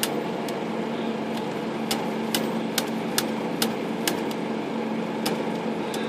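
Smith Corona Skyriter portable typewriter's carriage mechanism ticking, a sharp click about twice a second, as the carriage is worked by hand. A steady low hum runs underneath.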